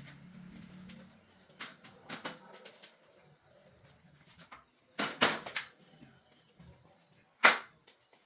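Several sharp knocks and clacks of hard objects being handled: a couple early on, a quick cluster about five seconds in, and the loudest single knock near the end, over a faint steady high hiss.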